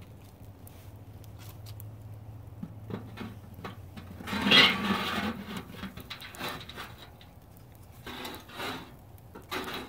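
Shovel scraping and sliding red-hot oak coals under a small charcoal smoker, loudest about four and a half seconds in, with a few shorter scrapes near the end.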